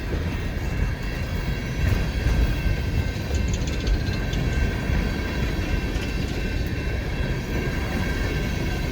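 Empty coal hopper cars of a freight train rolling past, a steady rumble of wheels on the rails as the train gathers speed, with a few faint clicks about three to four seconds in.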